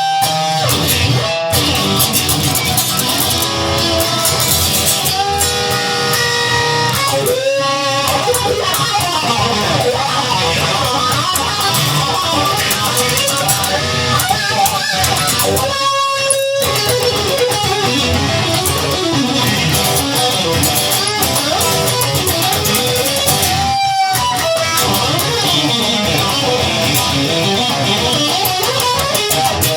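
Instrumental stretch of a blues-rock song: electric guitar playing over bass and band, with bending notes.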